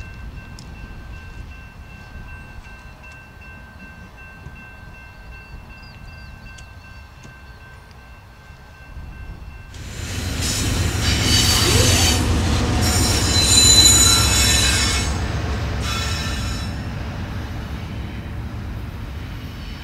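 Quiet track-side ambience with two faint steady high tones, then about halfway through a freight train's cars rolling past loudly, wheels squealing against the rails, easing off toward the end.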